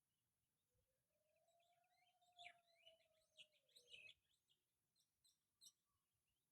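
Faint chirps and short calls of a caged pet bird, scattered through the middle of a few quiet seconds, over a faint drawn-out hum that swells and fades.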